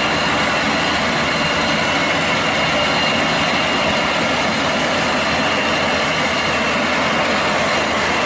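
Scarab road sweeper on a Volvo truck, running as it sweeps fallen leaves: a steady noise of engine, sweeping gear and the turning side brush, with a faint high whine.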